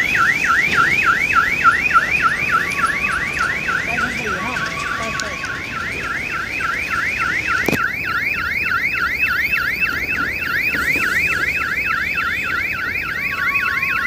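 Electronic railway warning hooter sounding a continuous fast warble, each tone rising quickly and dropping back, about four to five times a second. It signals that a train is approaching.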